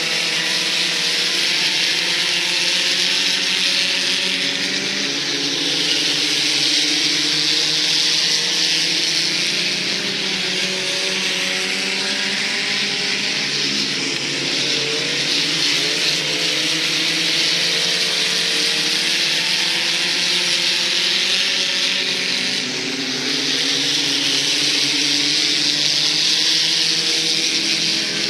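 A field of dirt-track sport compact race cars running laps, their small four-cylinder engines holding a steady, wavering note from several cars at once. The sound swells twice as the pack comes close, about a fifth of the way in and again near the end.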